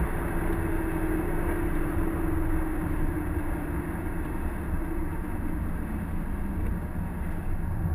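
Cabin sound of a 2011 Subaru WRX with its turbocharged EJ255 flat-four running at speed: a steady engine drone with tyre and road noise from the wet track, its engine tone easing slightly lower over the first few seconds.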